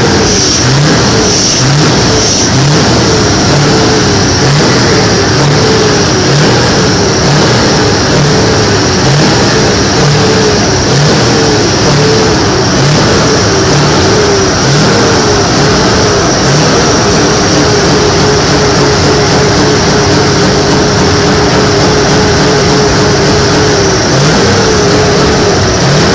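Scania V8 truck engine being revved over and over in quick blips, about one a second. In the last third it is held at a steady high rev for several seconds, then the blips start again near the end.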